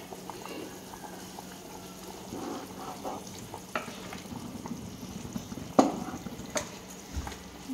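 A large metal pot of biryani masala bubbling at a full boil while it is stirred, with a few sharp knocks against the pot, the loudest about six seconds in.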